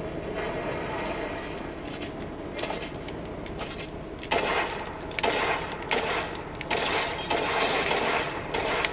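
Video game audio from a shooter played on a TV: steady game background at first, then repeated bursts of gunfire from about four seconds in.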